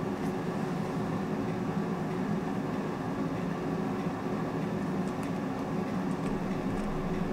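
Steady whirring hum of a running fan, with a faint steady tone in it. A few faint light clicks about five to seven seconds in.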